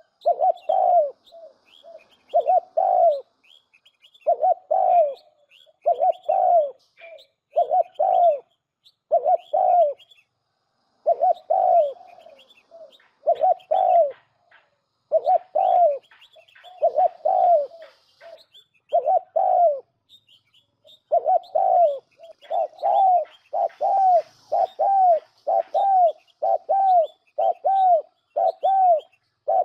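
Spotted dove cooing over and over, a recorded lure call for bird trapping played through a trap speaker. The notes come about once a second and grow quicker toward the end, with faint high chirps above them.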